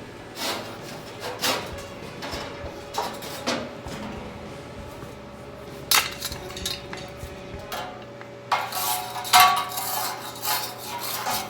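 Steel clanking and clinking: a string of separate sharp knocks, getting denser near the end, as pieces of metal are handled and knocked together.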